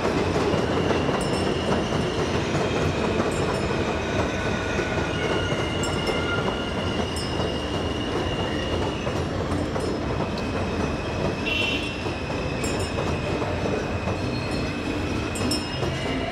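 A train passing with a steady rumble and long, high-pitched squeals of its wheels over the rails.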